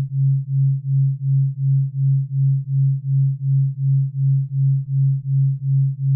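Synthesized theta brainwave-entrainment tone: a single low, pure electronic hum that pulses evenly in loudness about three times a second.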